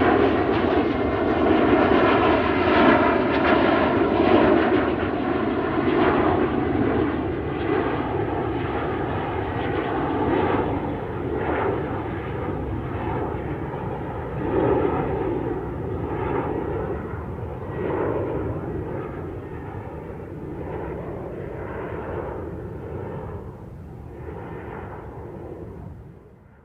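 Military aircraft engine noise, a steady rumble that gradually fades away over about twenty seconds.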